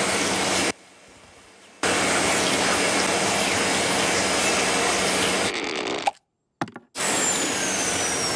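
Cartoon vacuum cleaner sound effect: a loud, steady rushing hiss with a low hum under it. It cuts out about a second in, comes back and runs for about four seconds, drops out near six seconds with a brief blip, then starts again, with a thin high tone falling in pitch near the end.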